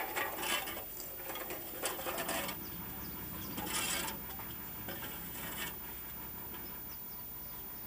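Shovel scraping along pavement and scooping into a pile of litter, with empty drink cans and plastic cups clattering, in several short scrapes a second or two apart.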